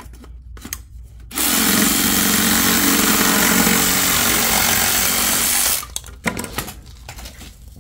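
Cordless DeWalt reciprocating saw cutting through black ABS drain pipe. It starts just over a second in, runs steadily for about four and a half seconds, and stops suddenly. A few light handling knocks come before and after the cut.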